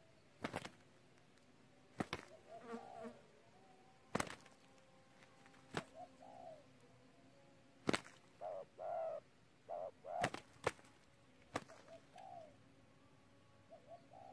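Two spotted doves fighting: about eight sharp wing slaps spaced a second or two apart, with short low coos between them, thickest in the middle of the fight.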